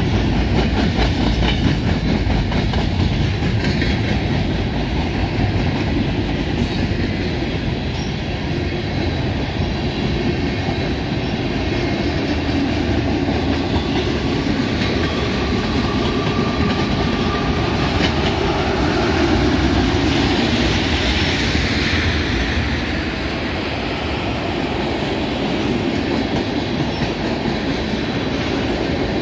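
Freight cars (covered hoppers and tank cars) rolling past close by: a steady rumble of steel wheels on rail with a rapid clickety-clack, and a faint thin wheel squeal partway through.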